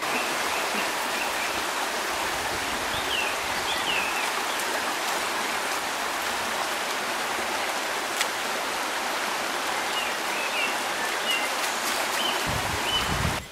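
Shallow rocky stream rushing over stones, a steady watery hiss. A few short high chirps sound over it, about three seconds in and again near the end.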